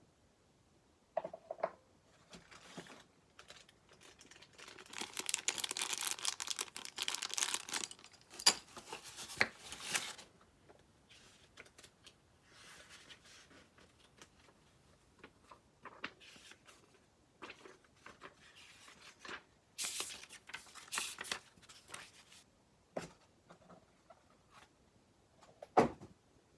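Packaging being handled: crinkling and tearing in two longer stretches, between scattered clicks and light knocks of items being moved.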